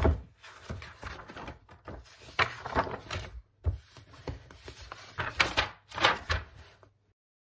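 Sheets of paper in a stack of printed notes rustling and flapping as pages are turned over and handled, in a series of short bursts, with a sharp thump at the very start. It cuts off suddenly near the end.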